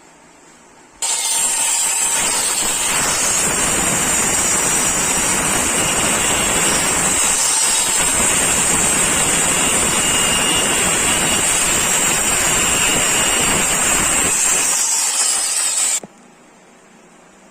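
A power tool running steadily and loudly for about fifteen seconds, cutting in suddenly about a second in and cutting off suddenly near the end.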